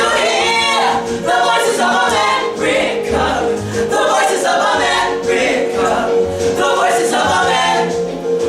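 A cappella group of voices singing, with one steady held note sustained beneath shifting vocal lines.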